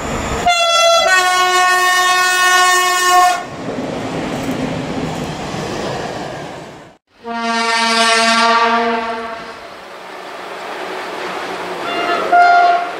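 Train horns over railway rumble. A long locomotive horn blast starts about half a second in and gives way to train noise. After a sudden break, a second long horn blast sounds. Near the end an approaching SU42 diesel locomotive gives a short toot on its horn.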